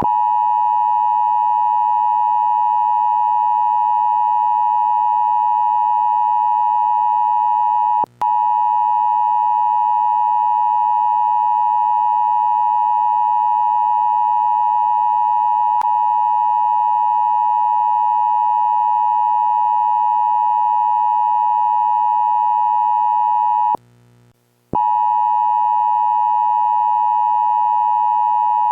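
Emergency alert attention tone: a loud, steady electronic tone near 1 kHz held for a long stretch. It breaks off for a split second about eight seconds in and for about a second near the end, then resumes.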